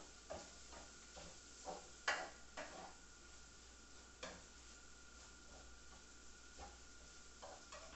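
A cooking utensil scraping and tapping in a frying pan as sausage, bacon and garlic are stirred, in irregular strokes with the sharpest knock about two seconds in, over a faint frying sizzle.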